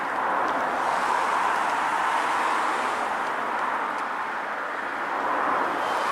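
Steady rushing outdoor background noise, swelling and easing slowly, with no distinct events.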